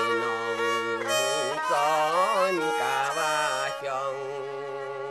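Music on bowed strings: a wavering, gliding melody over steady low held notes.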